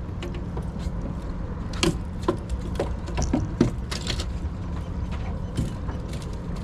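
Scattered knocks and rattles of gear being handled aboard a fishing boat, over a steady low engine hum.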